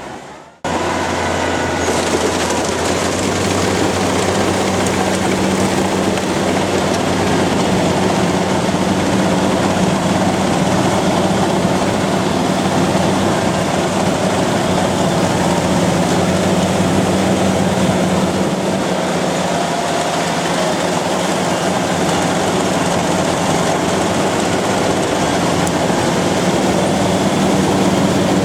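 Kubota combine harvester running steadily, a constant engine hum under a dense mechanical rattle from the machinery. The sound breaks off briefly at the very start, then cuts back in about half a second in.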